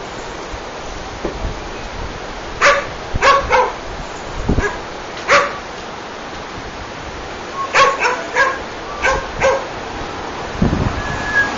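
A tan short-haired dog barking at a cat: about nine short, sharp barks in scattered groups of two or three, over a steady background hiss.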